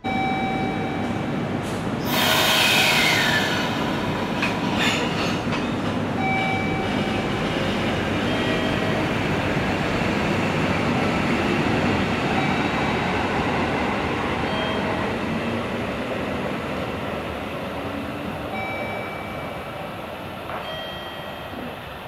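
A JR Hokkaido 721 series electric train pulling out of the station and running off, its wheels and running gear rumbling past. A loud rushing burst with a falling whine comes about two seconds in, and the sound fades slowly as the train moves away.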